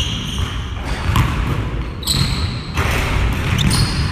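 Basketball bouncing on a hardwood gym floor as it is dribbled, several separate bounces roughly a second apart.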